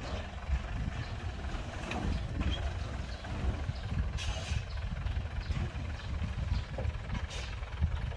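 Heavy diesel construction machinery running with a low, uneven rumble, with two short hisses about four seconds in and again near the end.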